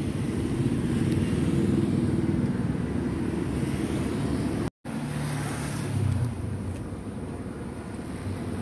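Road traffic going by: motor vehicle engines, motorbikes among them, running steadily, with a brief drop to silence about halfway through.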